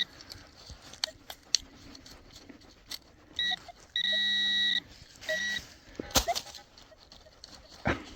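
Metal detector beeping over a buried target: a short beep, a longer beep of almost a second, then another short beep, with scattered clicks and scrapes of digging between them.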